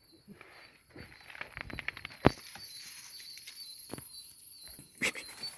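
Dogs scratching and digging at the mouth of a burrow where they have run their quarry to ground: a quick run of scratches and knocks about a second in, a sharper knock just after, and a few more scattered knocks later.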